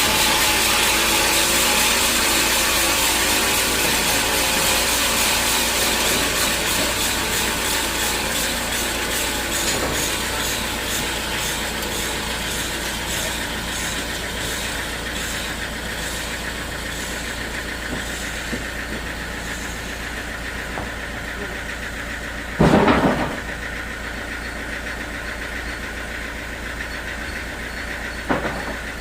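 Sawmill machinery running with a steady engine drone, the noise easing off gradually over the first dozen seconds. A sharp, loud knock comes about two-thirds of the way through, and a smaller one near the end.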